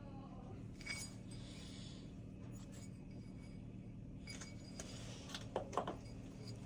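A few light metallic clinks and knocks of small metal parts being handled: one about a second in and a short cluster of ringing clinks near the end, over a steady low electrical hum.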